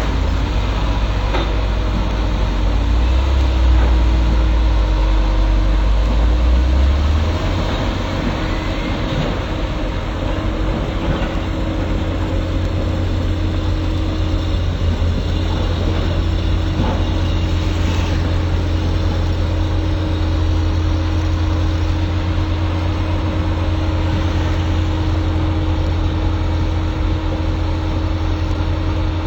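Excavator's diesel engine running with a steady low drone, louder for a few seconds near the start before settling to an even level.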